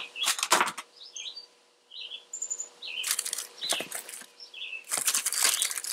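Rustling and clatter of packages and plastic-wrapped items being shifted around inside a plastic storage tote, in several short bursts. Small birds chirp repeatedly in the background.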